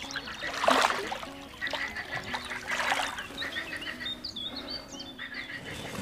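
A released mirror carp splashing in shallow river water, two strong splashes about a second and three seconds in, a sign of a lively fish swimming off. Birds are calling in the background.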